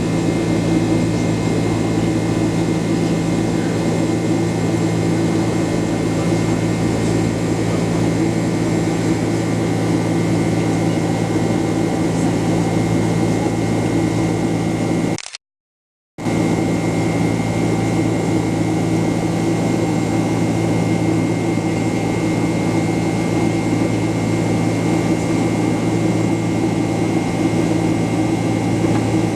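Steady cabin drone of an airliner, the hum of its jet engines and air conditioning heard inside the passenger cabin, with several steady humming tones. The sound cuts out completely for about a second roughly halfway through.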